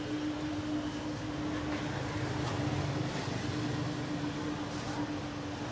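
Thin plastic bags crinkling as they are handled and packed, over a steady motor hum that holds one constant low tone, with low street rumble.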